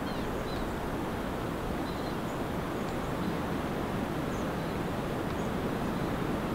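Steady outdoor wind noise, even and unchanging, with a few faint, short high chirps scattered through it.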